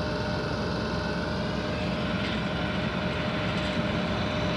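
Heavy diesel truck engines running under load as a heavy-haul rig pulls an oversized pressure vessel. It is a steady low rumble with a constant whine over it.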